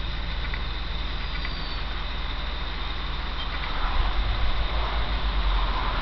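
Massey Ferguson 3070 tractor's diesel engine running steadily under load as it pulls a four-furrow reversible plough through the field, a low rumble that grows louder about two-thirds of the way in.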